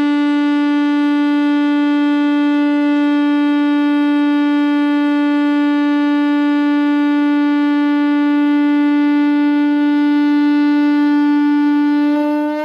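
A single long drone note held at one steady pitch, rich in overtones, like a horn or reed. It starts to fade away at the very end.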